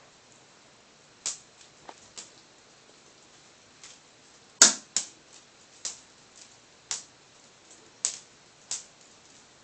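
A kitten playing with a string toy on a ceramic tile floor: the toy and the kitten's paws strike the tiles in sharp taps and clacks, about ten of them at roughly one a second, the loudest about halfway through.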